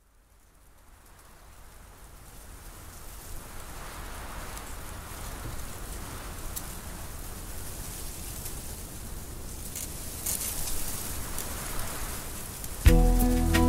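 Steady rushing noise like rain, fading in gradually from silence, with scattered faint crackles. Instrumental music starts abruptly near the end and is the loudest sound.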